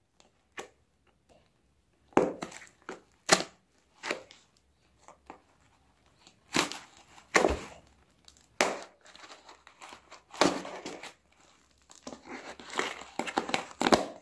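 Plastic courier mailer being torn open by hand: irregular rasps of tearing and crinkling plastic, with a denser stretch of rustling near the end.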